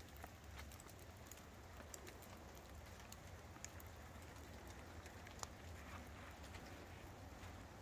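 Near silence: a low steady hum with scattered faint ticks and clicks.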